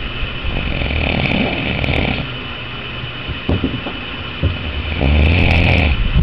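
Snoring: two long snores, one starting about half a second in and a louder one near the end.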